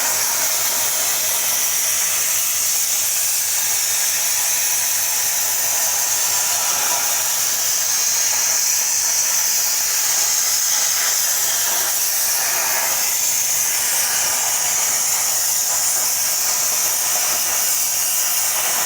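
Plasma cutter running: a steady hiss from the torch's air and arc, with no breaks.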